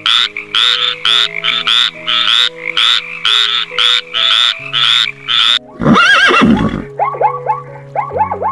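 Animal calls over background music: a rapid series of short calls, about three a second, breaking off after five and a half seconds, then one longer call, then quick repeated short calls near the end.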